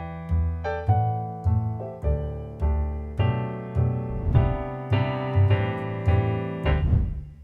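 Background piano music: a steady run of chords and melody notes over a bass line, about two notes a second.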